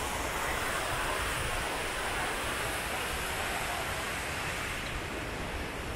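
Steady rushing water, an even hiss with no distinct events.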